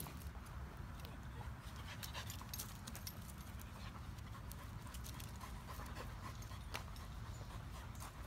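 Dogs panting close by, with scattered light clicks and scuffs throughout.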